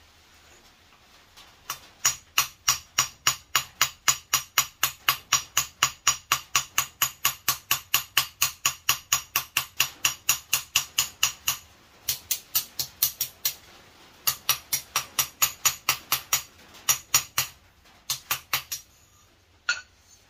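Hand hammer striking hot steel on an anvil: a steady run of ringing blows, about three a second, then after a short pause several shorter runs of blows.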